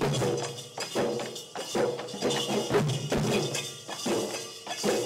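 A folk drum troupe playing: large barrel drums beating a steady rhythm with jingling percussion over it.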